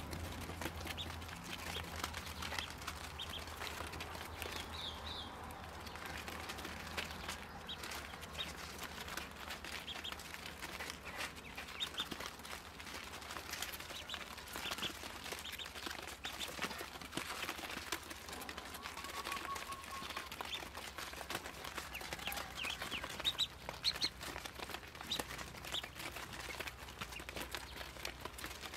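A brood of Muscovy ducklings peeping: many short, high chirps overlapping throughout, with scattered soft clicks and rustles, over a low steady hum.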